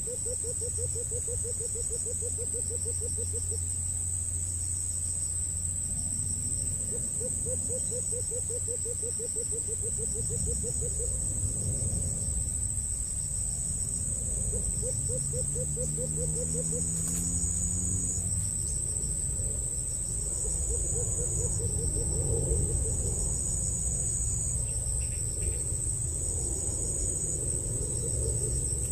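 Insects shrilling steadily, a continuous high-pitched buzz with intermittent chirps over it. A low, rapid trill comes and goes several times, each run lasting a few seconds.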